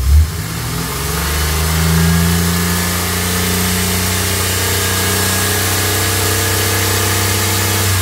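Chevrolet 4.3-litre V6 engine revved up from idle about a second in and held at raised speed, running evenly. It has no audible miss, though a scan tool is counting misfires on cylinders 1 and 4 (code P0300).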